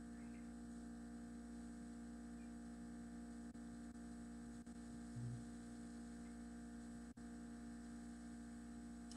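Faint, steady electrical hum, a low buzzing tone with no other sound over it.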